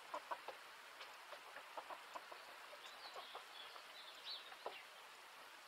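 Domestic hens clucking faintly, short scattered clucks, with a few higher bird chirps around the middle.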